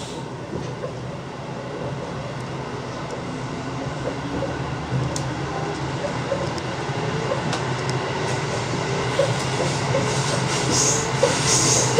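Seibu 2000-series electric commuter train running, heard from the driver's cab: a steady low hum under wheel-on-rail noise, growing gradually louder. A few faint clicks sound along the way, and high wheel hiss and squeal comes in patches near the end.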